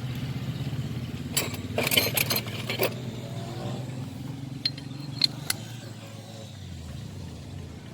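Sharp metallic clicks and clinks of a socket wrench being fitted to and worked on the glow-plug nuts: a cluster of clinks about a second and a half in, then three quick ticks around five seconds. Underneath is a steady low engine drone that sinks in pitch and fades near the end.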